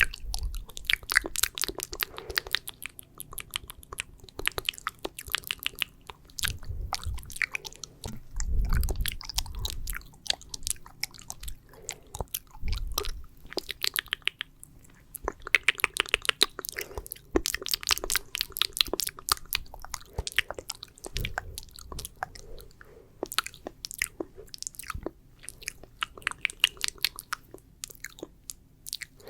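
Close-miked wet mouth sounds: sticky saliva clicks and smacks in quick, irregular runs, with a few soft low thuds between them.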